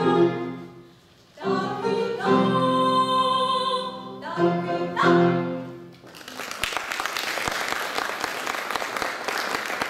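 A female solo singer with piano accompaniment sings the last phrases of a song, including one long held note. The song ends about six seconds in and the audience breaks into applause.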